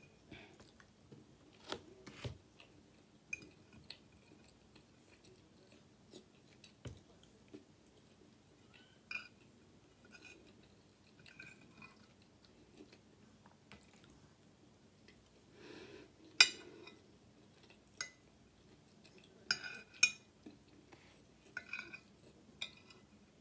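Fork clinking and scraping on a plate while gathering up rice, with soft chewing and mouth sounds between. Scattered light clicks, with a few sharper clinks in the second half.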